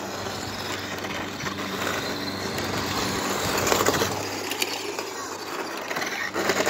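Small brushed electric motors and plastic gears of two toy-grade RC cars whirring as they drive on concrete, running on 9.6-volt packs instead of their stock 7.2 volts. The sound swells as one car passes close, about four seconds in.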